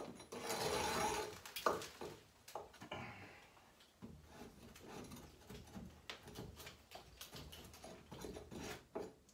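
Old paint being scraped off a sand wall: irregular scratchy scraping strokes with small clicks and bits crumbling away, loudest in the first second. The paint was put straight onto the sand with no base preparation, so it comes away easily.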